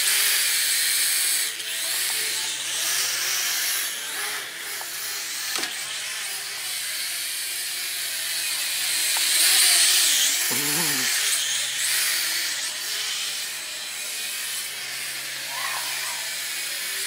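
FPV quadcopter drone in flight, its propellers and motors making a steady high buzzing whine that wavers as the pilot throttles, growing louder about ten seconds in.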